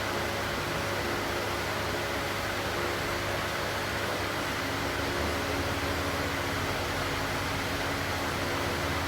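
Steady mechanical hum over a constant hiss, with no strokes or rhythm; the low hum shifts slightly about five seconds in.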